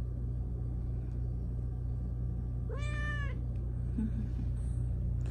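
A domestic cat gives one short meow about three seconds in, rising and then falling in pitch, over a steady low hum.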